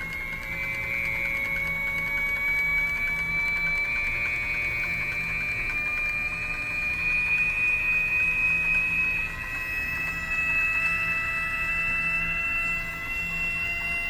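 Micro glassworking lathe's drive whining as its speed is turned up, several tones climbing slowly and steadily in pitch toward the lathe's maximum speed, over a steady low hum.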